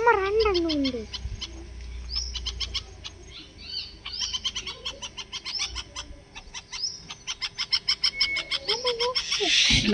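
Bulbuls at the nest giving long runs of rapid, sharp, high chirps, broken by a few short rising calls.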